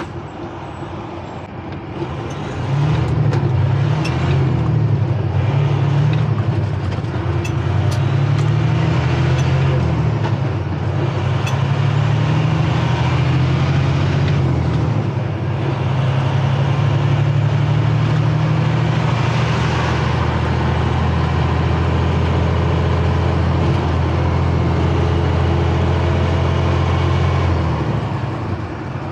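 Semi truck's diesel engine, heard from inside the cab, pulling away from a stop with no trailer behind it: the engine note swells about two seconds in, then climbs and drops several times as the truck shifts up through the gears, before settling into a steady run and easing off near the end.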